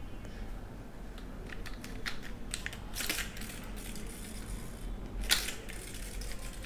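Small plastic toy bicycle handled in the hands: scattered light clicks and taps, with one sharper click about five seconds in, over a steady low hum.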